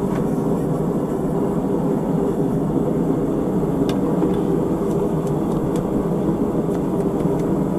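Blacksmith's forge running steadily, an even roar with a steady hum while a workpiece heats, with a few faint ticks.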